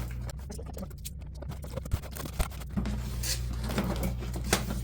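Rustling, scratching and scraping of an old cardboard toy box and its contents being handled, with a few sharp clicks.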